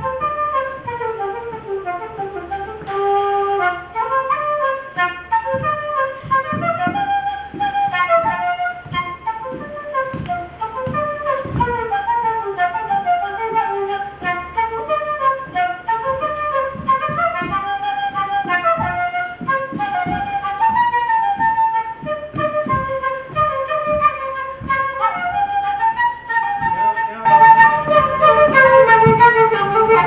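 An Irish whistle playing a quick dance tune, a single line of short notes in fast runs. It grows louder near the end.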